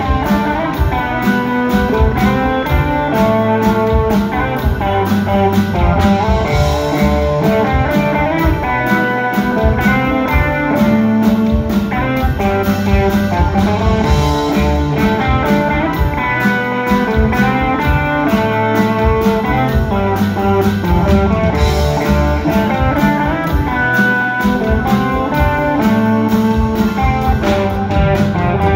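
Live rock band playing an instrumental passage: electric guitar lines over bass, keyboards and a steady drum beat.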